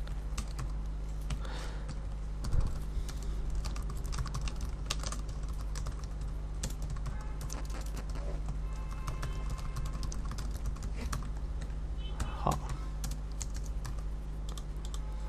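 Typing on a computer keyboard: quick, irregular key clicks over a steady low electrical hum.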